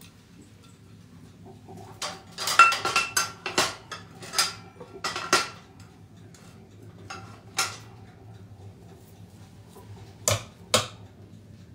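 Dishes and cutlery clinking and clattering in a kitchen sink as they are washed by hand. A quick run of sharp, partly ringing clinks and knocks lasts about three seconds, then a single knock follows, and two more come close together near the end.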